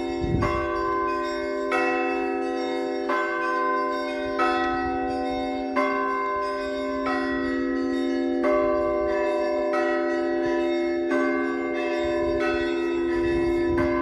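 Russian Orthodox bells of the Raifa Monastery ringing, struck in turn about once every second and a half. Each stroke rings on over a steady low hum.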